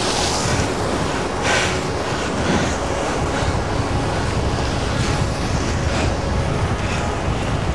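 Waves breaking and washing against the rocks of a jetty, with steady wind rumbling on the microphone; two brief surges of surf near the start and about a second and a half in.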